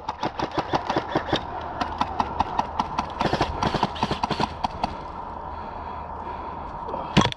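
Airsoft guns firing in an exchange: many sharp, irregular clicks and cracks of shots and BB hits, dense for the first few seconds, thinning out, then a loud burst near the end.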